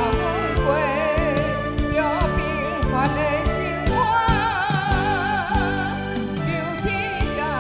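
A woman singing a Taiwanese Hokkien ballad into a microphone, her held notes wavering with vibrato, over backing music with a steady drum beat.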